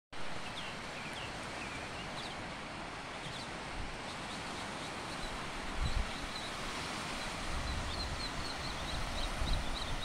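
Small waves washing on a sandy beach, with birds giving short, high chirps over and over. Low rumbles come and go in the second half.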